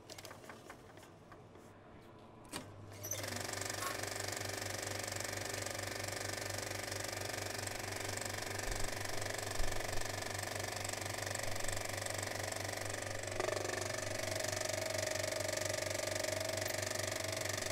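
A few faint clicks, then about three seconds in a steady, rapid mechanical rattle with a low hum starts and keeps running. A steady whine joins it later.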